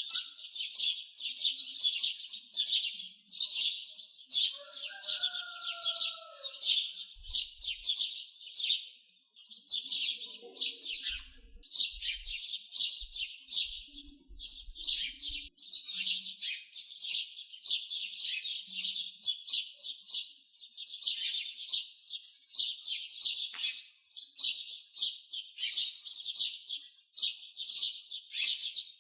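Many small birds chirping at once: a dense, continuous chatter of rapid high notes, with a few fainter, lower whistled notes about five seconds in.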